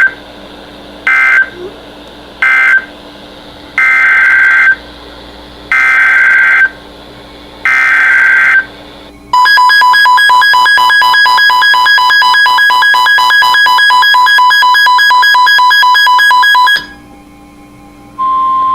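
NOAA Weather Radio SAME data bursts: three short end-of-message bursts, then three longer header bursts for the next alert. A loud, rapidly pulsing electronic alert tone follows for about seven seconds, and near the end the steady 1050 Hz warning alarm tone begins.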